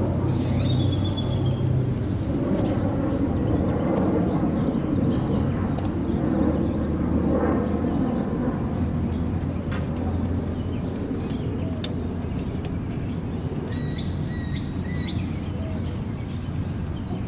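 Small birds chirping in short high calls over a steady low rumble of traffic, with a quick run of repeated calls late on.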